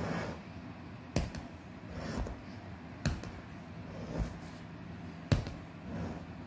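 Claw hammer knocking on a hard surface: three sharp knocks about two seconds apart, with softer thumps between them.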